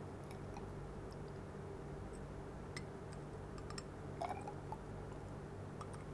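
Faint scattered clicks and light taps of a small glass vial being handled, one with a brief ring a little after four seconds, over a steady low hum.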